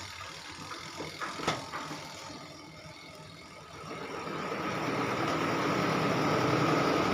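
A few light clicks and knocks, then about four seconds in the spin dryer motor of a washing machine starts and spins up, running on steadily with a hum and a high whine.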